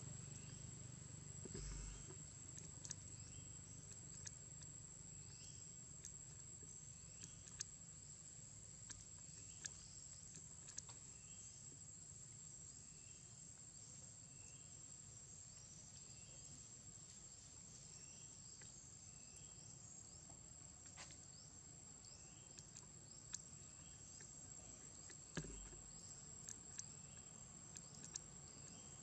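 Faint outdoor insect drone: a steady high whine, with a small chirp repeating about once a second and scattered soft ticks.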